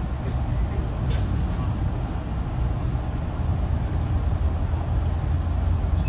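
Metro-North commuter train running: a steady deep rumble heard from inside the coach, with a couple of short high squeaks about a second in and about four seconds in.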